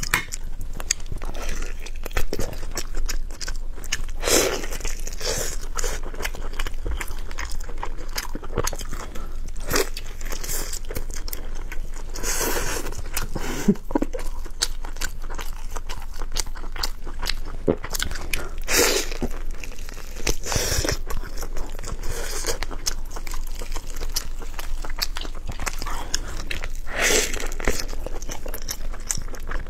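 Close-miked chewing and biting of a person eating stewed pork knuckle: continuous wet mouth clicks, with a louder smack or bite every several seconds.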